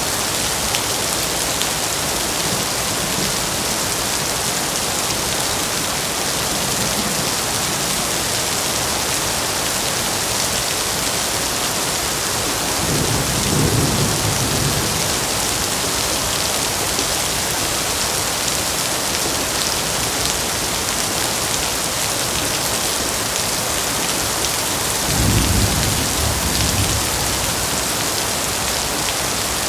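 Heavy rain falling steadily, with two low rolls of thunder, one near the middle and one near the end, each lasting about two seconds.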